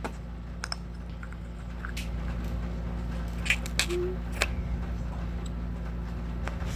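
Slime and its small plastic container being handled: a handful of faint, scattered clicks and sticky pops over a steady low hum.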